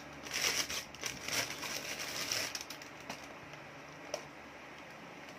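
Clear plastic wrapping crinkling and rustling in quick irregular bursts as it is pulled off a plastic container, easing off after about two and a half seconds. A couple of light clicks follow.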